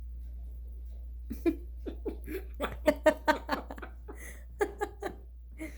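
Laughter: a quick run of short ha-ha bursts starting about a second in and going on for about four seconds.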